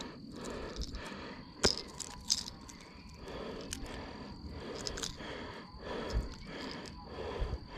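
Close handling noise as the hooks of a hard-plastic lure are worked out of a largemouth bass's jaw by hand: rustling and scraping with a few sharp clicks, the sharpest about two seconds in.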